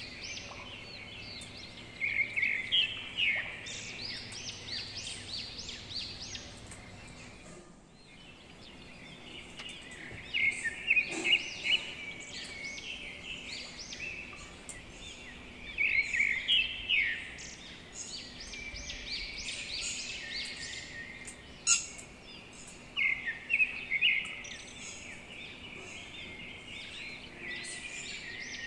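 Small birds chirping in repeated quick bursts of short, high notes. A couple of sharp clicks stand out above them, one partway through and one about two-thirds of the way in.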